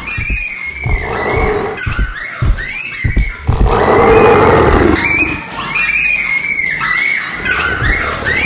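A dinosaur roar sound effect for a charging T. rex, one long roar about three and a half seconds in that is the loudest sound, with low thuds of its footfalls and children's high shrieks around it.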